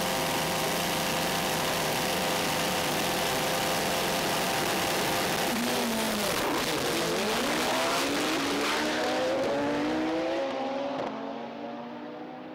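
Two drag cars, the near one a Honda Civic, with their engines held at a steady high rev on the start line. About six seconds in they launch: the engine notes dip, then climb in repeated rising sweeps through the gears, and fade near the end as the cars run away down the quarter mile.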